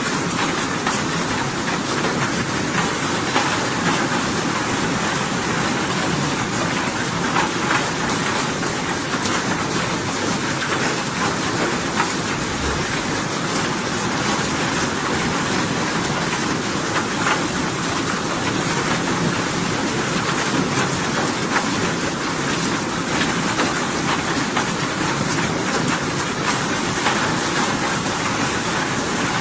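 Steady rain falling: an even, constant hiss with scattered sharper drop ticks.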